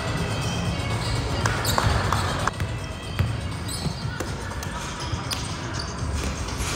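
Basketball game play: a ball being dribbled and bouncing on a gym floor, with several sharp knocks and a few short squeaks over a steady murmur of crowd voices.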